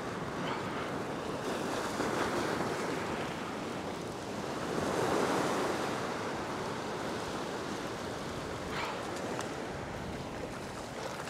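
Ocean surf washing and surging over a rock ledge, with louder swells rushing in about two seconds in and again around five seconds.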